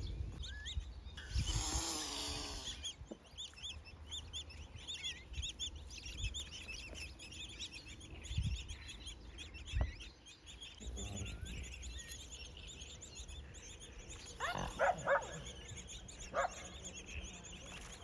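Small birds chirping and twittering, with a steady low rumble underneath. About 14 to 16 seconds in there are a few short, louder calls.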